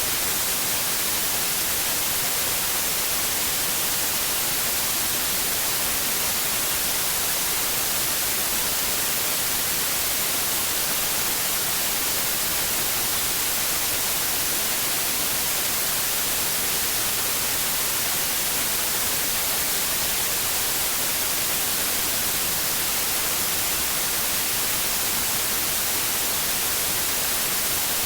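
Steady white noise: an even, unchanging hiss, strongest in the highest frequencies, played as a sleep aid for babies.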